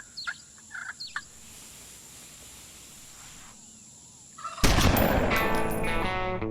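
A few short bird calls over quiet outdoor background, then about four and a half seconds in loud music with distorted electric guitar starts abruptly.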